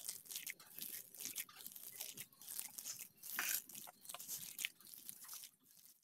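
A hand mixing and squeezing thick, coarse ground masoor dal paste in a steel bowl, giving an irregular run of short squelching, scraping sounds as the fingers work the paste against the bowl.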